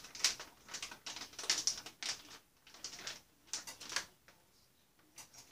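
Plastic bag of diced chicken crinkling as it is shaken out over a skillet, a run of short irregular rustles that die away a little after four seconds in.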